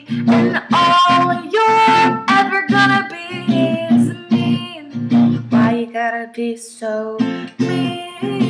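Acoustic guitar strummed in a steady rhythm while a woman sings along, a solo acoustic pop song performance.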